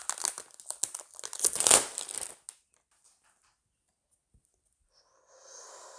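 Packaging crinkling and rustling as it is handled during the unboxing, loudest about a second and a half in and stopping after about two and a half seconds. A fainter, softer rustle follows near the end.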